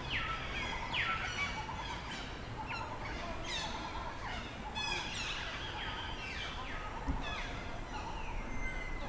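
Many animals calling over one another: a dense run of short, high-pitched calls, most of them sliding downward in pitch.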